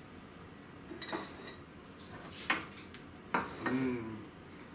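Chopsticks and tableware clicking against ceramic plates and bowls during a meal, a few sharp clicks about a second apart, then near the end a person's contented 'mmm' of enjoyment while eating.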